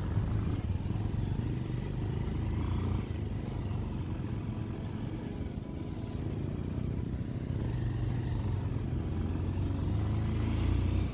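Motorcycle engine running while riding along at steady speed, heard as a continuous low rumble from the rider's own bike, easing off briefly about three seconds in.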